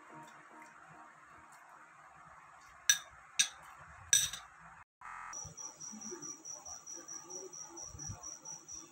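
A metal fork clinks three times against a glass plate while cutting cake. After a short break, a high-pitched chirp pulses steadily about five times a second.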